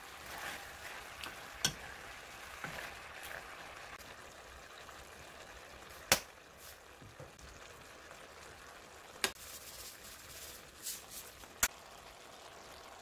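Stir-fried pork sizzling faintly in a nonstick wok while a wooden spatula stirs and scrapes through it, with four sharp knocks spread through the stretch.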